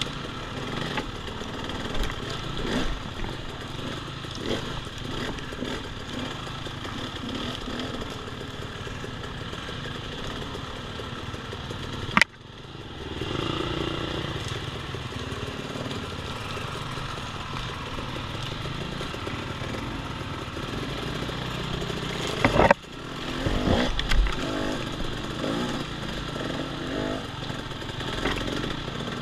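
Off-road dirt bike engine running along a woods trail, its note rising and falling with the throttle. There are two sharp knocks, the second about ten seconds after the first.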